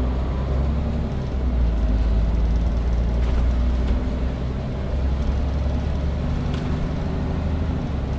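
SOR NB12 city bus heard from inside the cabin, its diesel engine running steadily with a deep drone. A faint high whine rises slightly and then falls away near the end, and there are a couple of light clicks.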